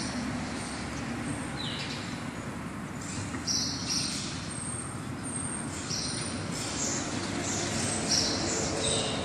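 Birds chirping in short calls every second or two over a steady outdoor background hum.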